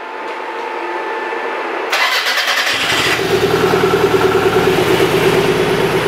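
Toyota 3S-GTE turbo four-cylinder engine being started: a faint hum, then the starter cranks about two seconds in and the engine catches within a second and settles into a fast, even idle. It is running on newly wired coil-on-plug ignition with two coil leads swapped, so the idle carries a slight misfire.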